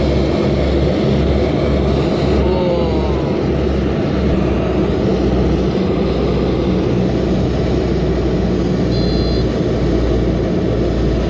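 Steady cabin noise of a private jet in flight: engine and air rush with a strong low hum underneath.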